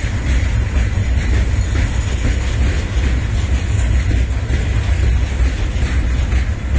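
Container wagons of a long freight train rolling past, a steady low rumble of steel wheels on the rails.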